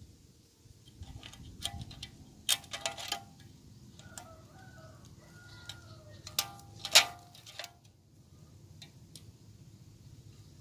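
Handheld stapler snapping staples through a plastic trough into tree bark: a handful of sharp clicks, the loudest about seven seconds in.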